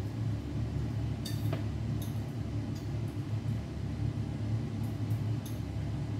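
A steady low hum from a running kitchen appliance, with a few faint light clicks of cookware being handled.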